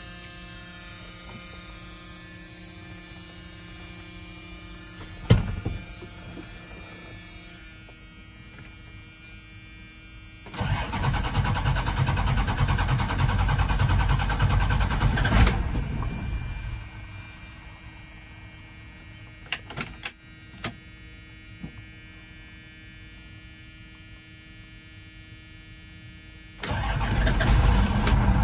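Cold start of a 1989 Dodge Ram's 12-valve Cummins inline-six diesel, unused for a while: the engine turns over on the starter for about six seconds and dies away without staying running. After some faint clicks it is cranked again near the end.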